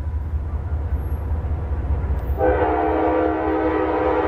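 Norfolk Southern diesel locomotive's multi-chime air horn sounding one long blast starting about two and a half seconds in, over a steady low rumble from the approaching train.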